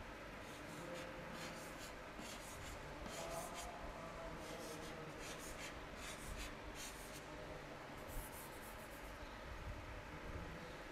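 Chalk scratching on a blackboard in a series of short, faint strokes as small ovals are drawn.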